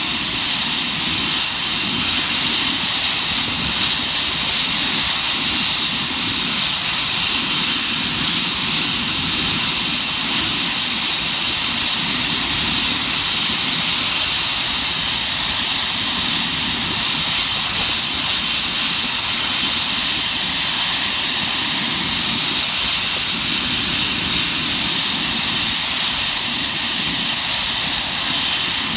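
Panavia Tornado GR4's twin RB199 turbofan engines running steadily, with a loud, high-pitched whine that holds one pitch throughout.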